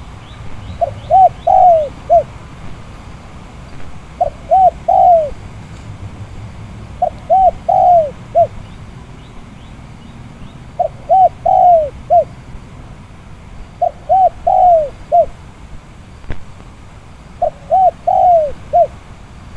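Spotted dove cooing its repeated phrase six times, about every three seconds. Each phrase is a couple of quick coos, a longer falling coo and a short closing note. A low wind rumble runs underneath.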